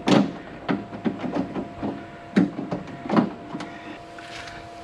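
Metal clicks and knocks of door latch and lock linkage parts being handled inside a Land Cruiser door shell: a sharp knock at the start, a run of light clicks, then two more knocks a little over two and three seconds in.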